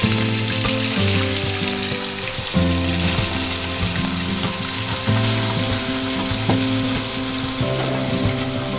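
Pieces of rohu fish sizzling steadily as they fry in hot oil in a steel kadhai, over background music with sustained notes that change every couple of seconds.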